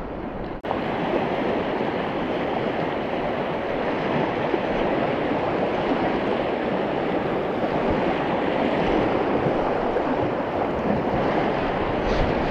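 Steady rush of a swift river current running over riffles, briefly cutting out about half a second in.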